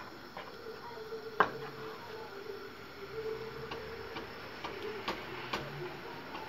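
Wooden spoon knocking and scraping against a granite-coated frying pan while stirring raw ground beef: irregular taps, the loudest about a second and a half in and a few more close together near the end. A faint steady hum runs underneath.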